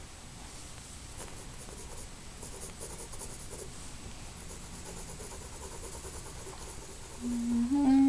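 Graphite pencil scratching across drawing paper in short shading strokes. Near the end a person's voice sings two brief notes, the second a step higher.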